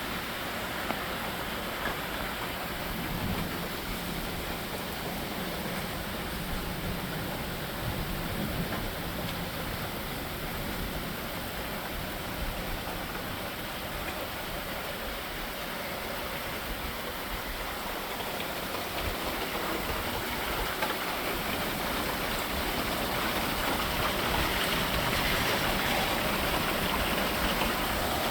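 Rain falling steadily, a dense even hiss with a few faint scattered ticks, growing a little louder in the last few seconds.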